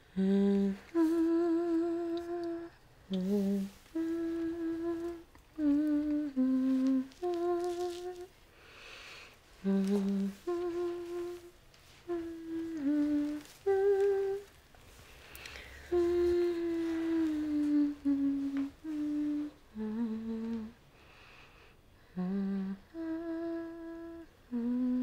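A woman humming a slow melody, note by note, with each note held briefly and short breaths between phrases.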